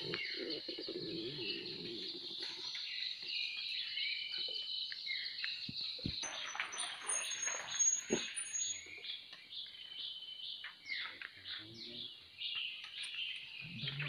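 A dense chorus of wild birds chirping and twittering in tropical forest, with short falling whistles throughout. Two sharp clicks stand out, about six and eight seconds in.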